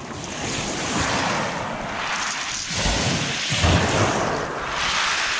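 Small waves breaking and washing up over a shingle beach, with wind buffeting the microphone in a few low surges about three seconds in.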